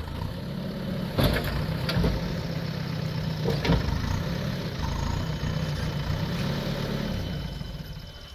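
Backhoe loader's diesel engine idling with a steady low drone, fading out near the end. A few sharp knocks sound over it, the loudest about a second and about three and a half seconds in.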